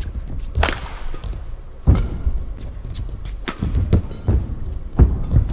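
Badminton rally: about four sharp racket strikes on the shuttlecock, roughly a second and a half apart, with low thuds of footwork on the court between them.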